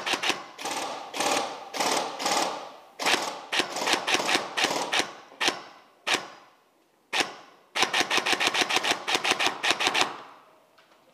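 Airsoft rifle firing on full auto in several rapid bursts of roughly ten shots a second, with short pauses between them, a single shot after a brief lull, then a longer burst that stops about a second before the end.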